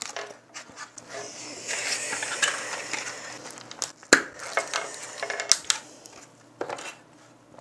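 Crinkling and rustling of a foil-and-plastic snack packet as gloved hands tear it open and handle it, with scattered small clicks and one sharp click about four seconds in.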